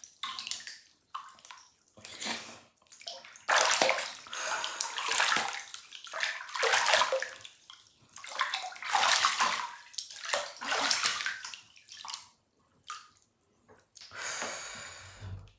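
Bath water sloshing and splashing in a Japanese soaking tub as a person moves about in it, in irregular bursts a second or two apart with short quiet gaps.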